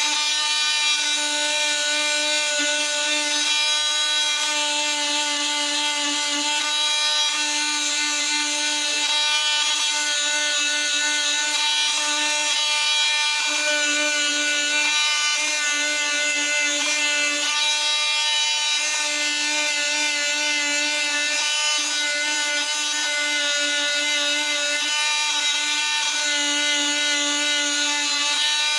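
Handheld rotary power-carving tool running at a steady high whine, its bit grinding into wood. The whine breaks briefly a few times as the bit bears on the wood.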